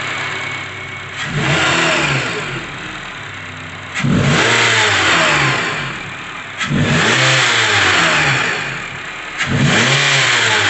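Honda CR-V's 2.4-litre four-cylinder engine, running with the serpentine belt removed, idling and then revved four times, each rev rising and falling back. This is a test of whether a knocking noise at start-up and under throttle comes from the engine itself or from the belt drive; with the belt off the knock is gone, pointing to the worn serpentine belt.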